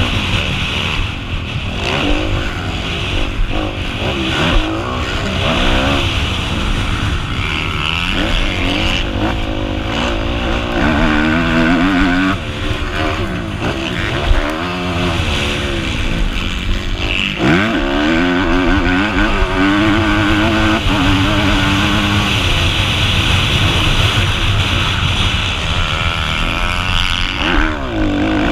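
Kawasaki KX250F four-stroke single-cylinder motocross engine heard up close, revving hard and repeatedly climbing and dropping in pitch as the rider works the throttle and shifts gears through the track's straights and corners.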